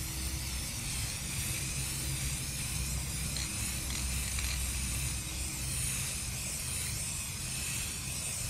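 Aerosol spray paint can spraying in one long, continuous hiss, with a low rumble underneath.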